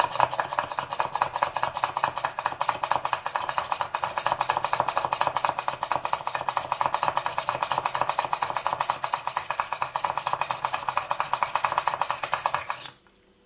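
Hand push drill with a spiral shaft, pumped up and down, its spinning chuck and bit giving a fast, even rattling scrape as it cuts through resin and polymer clay. It stops suddenly near the end.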